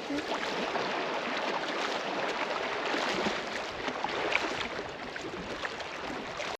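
Lake water lapping at the shore: a steady wash of water with small scattered splashes.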